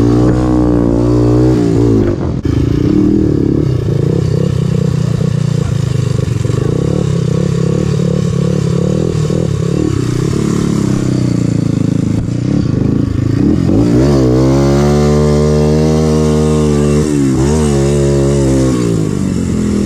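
Honda TRX300EX quad's single-cylinder four-stroke engine, fitted with a White Bros E-series pipe, revved up and down as the throttle is worked. The engine's pitch rises and falls several times, with a longer high rev near the end.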